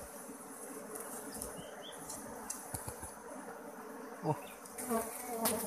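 Honeybees buzzing steadily around their exposed comb as it is disturbed, with a few short, sharp rustles.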